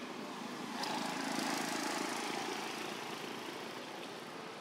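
A motor engine running at a distance, growing louder about a second in and then slowly fading, as a vehicle passing by.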